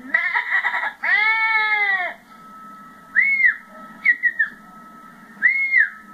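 A man imitating animals with his voice: a quavering, bleat-like call, then a long call that rises and falls in pitch. He follows with whistled bird-like calls: short arching whistles, one a quick run of three falling notes, over a faint steady tone.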